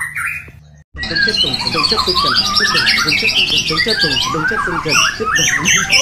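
White-rumped shama (murai batu) singing a rapid, varied song of fast high trills and quick sweeping whistles. The sound drops out for a moment just before a second in, then the song resumes dense and unbroken.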